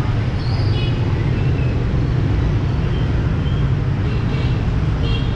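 Steady low rumble of motorbike engines and street traffic, with a few faint short high tones.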